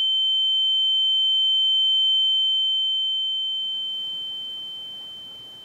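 A single high-pitched steady electronic tone, like a sine tone, starting abruptly as the voices cut off. It holds level for about two seconds, then fades away slowly.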